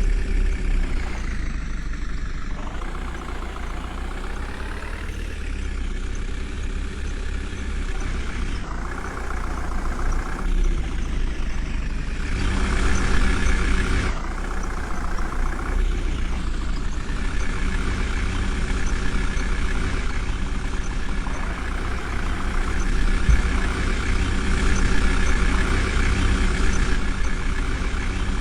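JCB 3DX backhoe loader's diesel engine running and revving up and down several times as the machine works, digging and loading earth.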